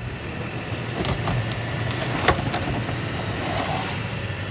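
Off-road vehicle's engine running steadily on a rough trail, with a few sharp knocks, the loudest a little over two seconds in.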